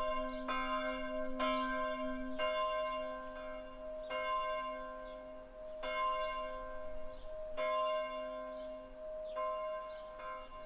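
Church bell tolling: repeated strokes, each ringing on into the next, about a second apart at first and then slowing to roughly one every two seconds.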